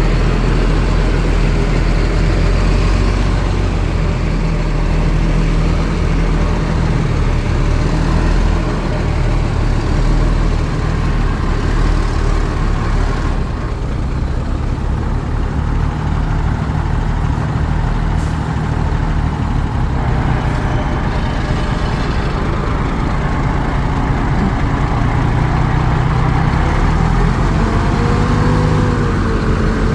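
Heavy diesel earthmoving machinery running steadily, with a deep engine drone. Near the end one engine's pitch shifts up and down.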